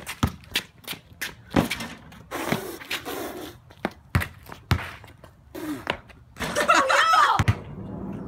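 Basketball bounced on a concrete driveway, a sharp thud about every half second, followed near the end by a loud, wavering shout or laugh.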